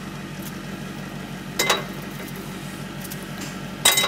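Two sharp metallic clinks, about two seconds apart, as hot fluted brioche tins are set down on a wire cooling rack, over a steady low machine hum.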